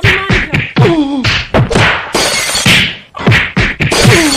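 A rapid run of whacking blows, more than a dozen in about four seconds, with voices crying out between them.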